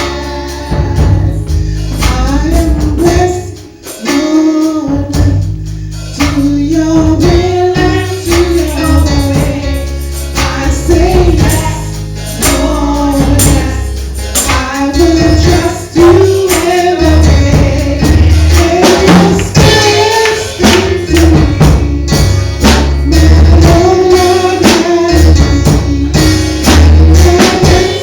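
Gospel music: a sung melody over a heavy bass line, with a tambourine keeping the beat.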